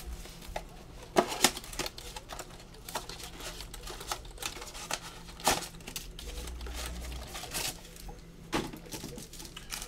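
Irregular light clicks and taps, with a few sharper ones about a second in, midway and near the end, over a faint steady low hum.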